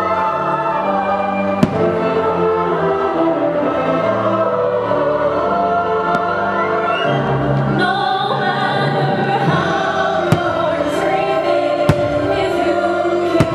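Fireworks show music with a choir singing, punctuated by a few sharp firework bangs: one about two seconds in and several more in the last few seconds.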